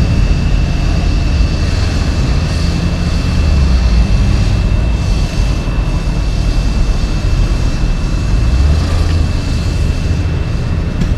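Diesel engines of a dump truck and the CAT 262C skid steer loading it, a steady low rumble that swells briefly a few times as the machine works, with a thin steady high whine over it.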